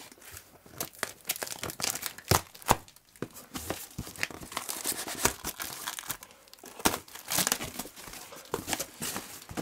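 A cardboard shipping carton being opened by hand: tape and packing material torn and crinkled, giving a busy run of sharp crackles and rustles.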